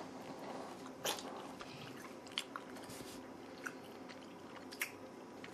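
Quiet chewing of a dried snack, with a few short crunches and clicks scattered through, the clearest about a second in.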